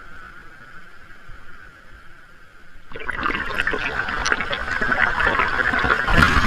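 Ocean surf: a steady hiss for the first few seconds, then about three seconds in a wave breaks and foaming water rushes in, crackling and getting louder toward the end.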